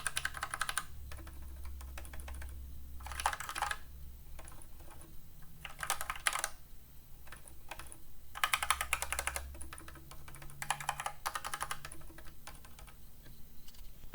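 Typing on a mechanical keyboard with silent switches, in quick bursts of muted key clicks with sparser single keystrokes between them.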